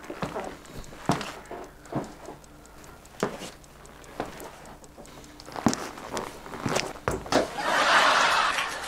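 Footsteps of trainers on a wooden floor, a person pacing with a soft knock about once a second. Near the end comes a louder rush of noise lasting about a second.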